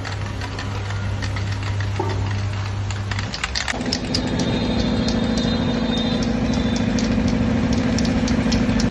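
A steady low machine hum, then about three and a half seconds in another motor-driven machine starts up and runs steadily, with scattered light clicks over it.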